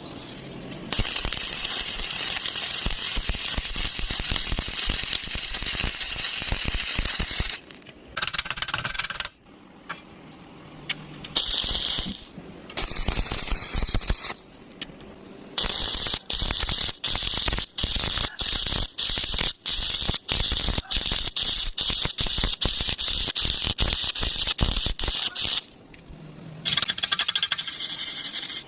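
Stick-welding arc crackling and sizzling steadily, breaking off and being struck again several times, with a long unbroken run through the middle.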